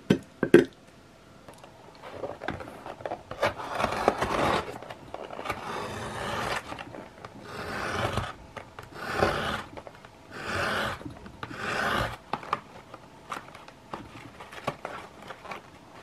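Blade edge of a steel credit-card multi tool drawn through a thin cardboard box, a series of about six scraping slicing strokes, with a couple of sharp clicks right at the start and a few light ticks near the end.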